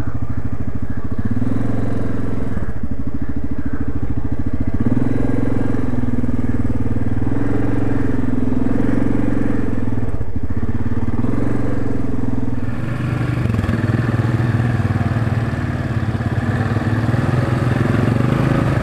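Yamaha ATV engine running at trail speed with the throttle rising and easing, pulling through mud; the engine note changes and drops slightly about two-thirds of the way through.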